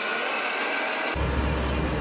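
Steady mechanical hum and hiss in a machine shop. About a second in it switches abruptly to the heavy low rumble of a large metal lathe running, its four-jaw chuck spinning an axle shaft.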